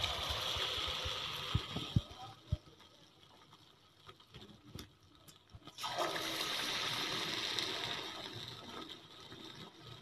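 Marinated chicken pieces sizzling hard in hot oil as they go in for deep-frying, the sizzle fading over about three seconds with a few light knocks. About six seconds in another piece goes into the oil and the sizzling surges again, then slowly fades.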